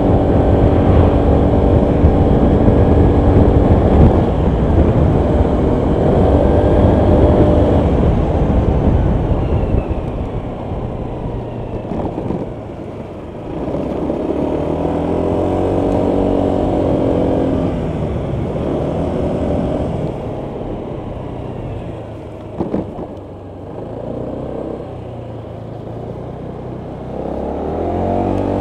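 Honda PCX 125 scooter's single-cylinder four-stroke engine under way, its note rising and falling several times as the rider accelerates and eases off, over a steady low wind rumble on the microphone. A single sharp knock sounds about three-quarters of the way through.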